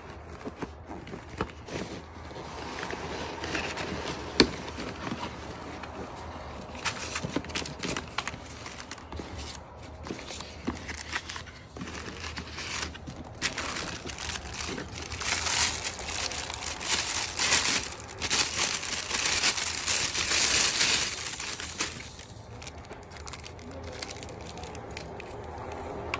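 Packing being handled: foam packing peanuts and cardboard rustling as hands dig through a shipping box, with a sharp tap about four seconds in. From about halfway to near the end, plastic wrapping crinkles loudly as a part is unwrapped.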